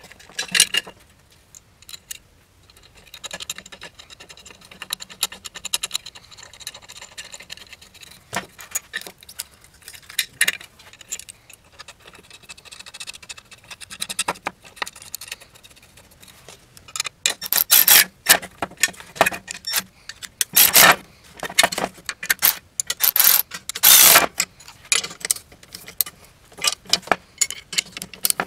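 Small steel bolts, lock washers and nuts clinking as they are fitted by hand into a strut top mount, then wrenches clicking and clinking against the nuts as they are tightened, in quick, louder runs over the second half.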